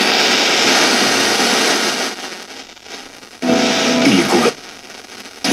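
Loud hiss of untuned FM radio static from a budget Bluetooth MP3 amplifier board's FM receiver, played through its speakers. It drops away about two seconds in, and a second, roughly one-second burst of hiss with some pitched sound in it comes about three and a half seconds in as the buttons are pressed.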